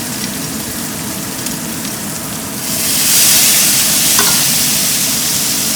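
Sliced pork belly and scallions sizzling in a hot pan as they are stir-fried. A little under three seconds in, the sizzle jumps louder and hissier as rice wine goes into the hot oil.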